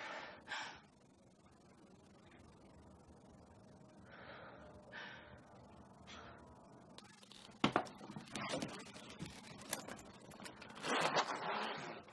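A woman's short, breathy gasps at the start, then a sharp click and irregular rustling and scraping, loudest about three-quarters of the way through.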